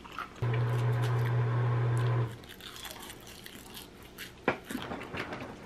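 Food being chewed and crunched in the mouth, with scattered soft clicks and one sharper click about four and a half seconds in. Near the start a steady low hum, the loudest sound, holds for about two seconds and then stops.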